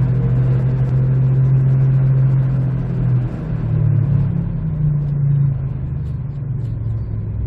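2008 Jeep Compass driving at low speed with a loud, steady hum from the front end; the pitch rises a little about three seconds in and drops back after about two seconds. The owner traces the hum to a bad right front wheel bearing.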